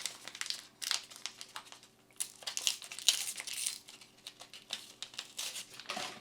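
Foil trading card booster pack wrapper crinkling as it is handled and opened, in irregular crackles that come thickest about two to four seconds in.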